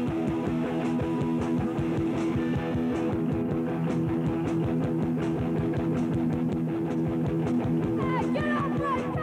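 Live rock band playing: electric guitar over bass and drums with a steady beat, and quick gliding high notes near the end.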